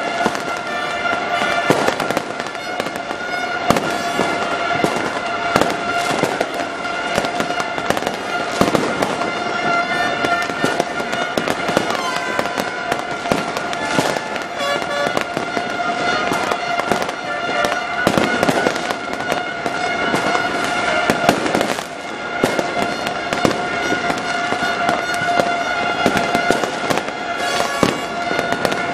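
Fireworks going off continuously, many shells bursting and crackling in quick succession, with a steady droning tone held underneath throughout.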